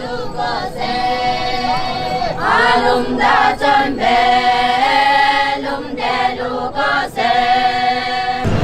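A group of Naga women singing together, unaccompanied, in long held notes with short breaks between the phrases.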